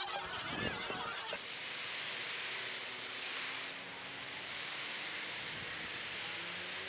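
Crowd chatter that cuts off suddenly about a second in, followed by a steady rush of wind over the camera microphone while riding a bicycle along a city road, with a faint hum of passing traffic.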